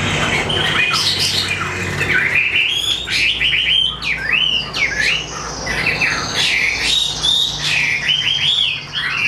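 Chinese hwamei (họa mi) singing a loud, varied song of rapid whistled phrases that slide up and down in pitch, one phrase after another with hardly a pause.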